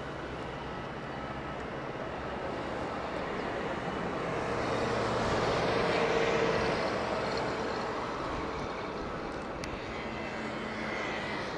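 Jet engines of an Airbus A320-214 (CFM56) on final approach: a steady rushing noise with a faint high whine, swelling to a peak about six seconds in and then easing.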